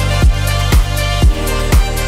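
Electronic background music with a steady kick drum at about two beats a second over held bass notes.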